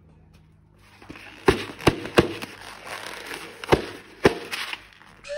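Slime and balloons being handled: a soft hiss with about five sharp clicks and crackles, then a rising slide-whistle sound effect starts right at the end.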